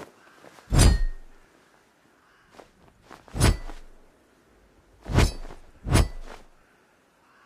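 Cutlass blade striking four times, each sharp hit followed by a brief metallic ring, with a couple of fainter taps between the second and third hits.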